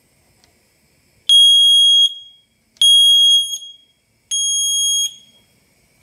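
PGST PA441 smoke detector's piezo sounder giving three loud, high-pitched beeps, each just under a second long and about a second and a half apart, the standard three-beep alarm pattern, set off by pressing its test button.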